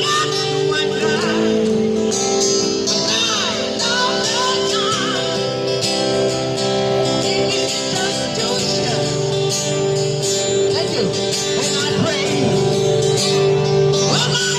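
A busker singing with guitar accompaniment, the voice holding long notes with vibrato.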